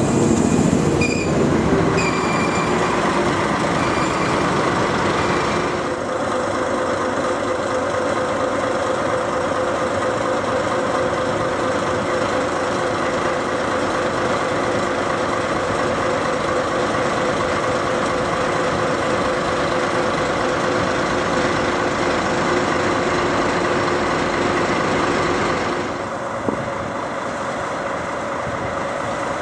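Train sounds at a station platform: a yellow local electric train at first, then the steady, unchanging hum of a standing diesel-hauled train, the idling engines of the paired DD51 diesel-hydraulic locomotives. About 26 s in the sound drops and settles onto a slightly different steady hum, with a single knock just after.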